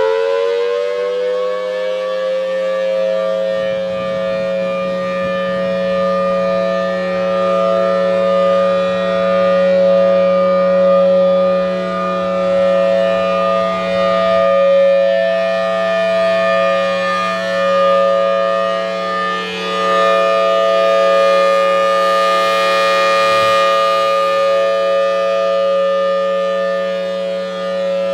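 Federal Signal Thunderbolt 1003 outdoor warning siren sounding its full alert: fully wound up and holding one steady wailing tone, its loudness swelling and dipping slightly.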